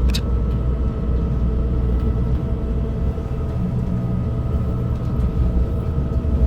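Steady low rumble of an electric train standing at the station, with a faint steady hum over it and a brief click at the very start.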